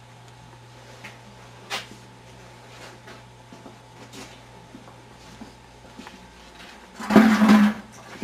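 Quiet workshop room tone with a steady low hum and a few faint clicks and knocks. Near the end comes a brief, louder burst of noise.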